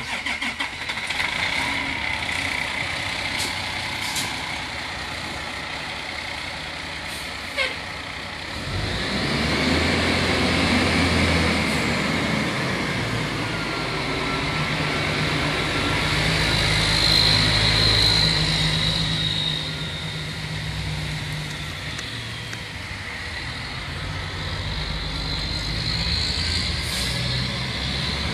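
1999 Pierce Dash fire engine's Detroit Diesel Series 60 running as the truck pulls out and drives off. There is a short sharp noise about seven and a half seconds in, and the engine gets louder about nine seconds in as it moves off.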